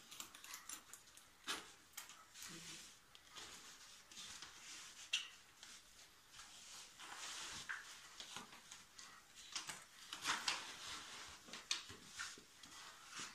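Fabric travel bag being handled: irregular rustling of the cloth with scattered short clicks and taps from its straps and fittings, busiest near the end.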